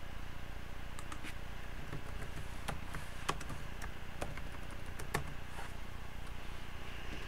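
Computer keyboard and mouse clicks, a dozen or so irregular taps over a few seconds, over a steady low hum.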